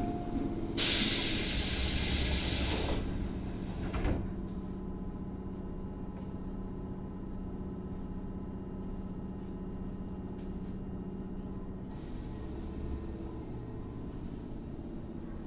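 Tobu 8000 series electric train's air system: a loud burst of compressed-air hiss lasting about two seconds, then a sharp clunk about four seconds in. A steady low hum follows, and a softer hiss starts again near the end.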